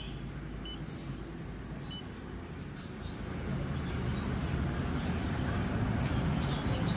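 Low rumble of a motor vehicle engine running close by, growing louder from about three seconds in. A few short high beeps sound in the first two seconds.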